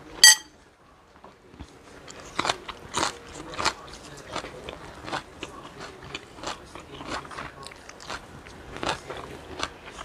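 A single sharp clink just after the start, then close-up crunching and chewing of a mouthful of raw greens: irregular crisp crunches from about two seconds in.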